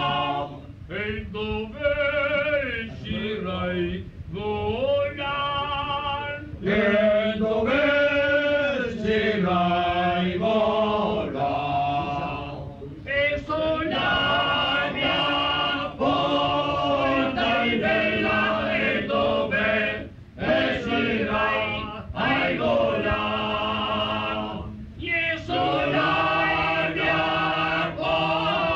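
A group of voices singing a traditional Venetian folk song in long sung phrases, with short breaks between the phrases.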